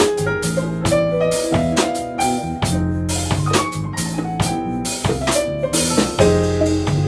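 Jazz-fusion band playing: a drum kit keeping a steady beat with cymbal and bass-drum strikes under a sustained bass line, with electric guitars and keyboard.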